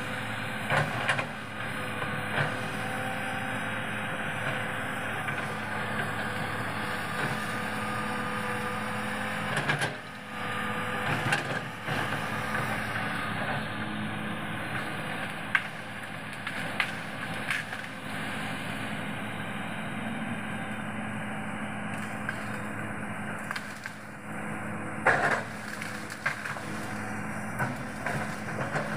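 Large Hitachi PC 210F excavator running steadily under working load, with sharp cracks and knocks now and then as it breaks and pushes over trees during land clearing.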